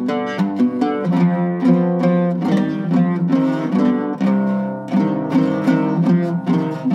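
Turkish oud with a cedar top and wenge back being plucked in a quick melodic run of single notes, several a second, each note ringing briefly into the next.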